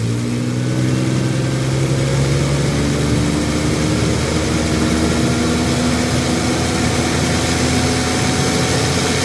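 Nissan TB45 inline-six forklift engine revved up and held at raised speed, with its exhaust blowing out through the open oxygen-sensor port. The pitch steps up about three seconds in. With the sensor out, the engine breathes freely and intake vacuum comes back, which confirms a plugged exhaust, more likely the catalytic converter.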